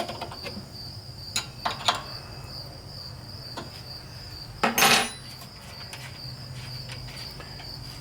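Small metal clicks and clinks of hand tools and carburetor hardware as a purge valve is fitted to the bottom of a snowblower carburetor, with a louder metallic clatter about five seconds in, over a steady high-pitched whine.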